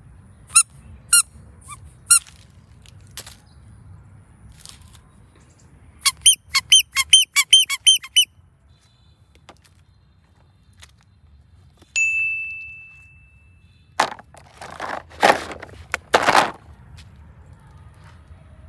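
Rubber squeeze toy squeaking: a few single squeaks, then a fast run of about ten squeaks. A steady high tone then fades out over about two seconds, followed by several louder rustling bursts.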